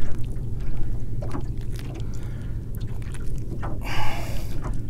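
Hands handling a small catfish and working the hook out of its mouth, with scattered light clicks and a short louder rustle about four seconds in, over a steady low rumble.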